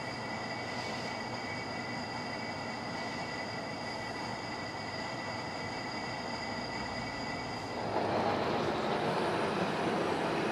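Large American Pacemaker engine lathe running, a steady machine rumble with a thin high whine. About eight seconds in it gets louder and rougher and the whine drops out.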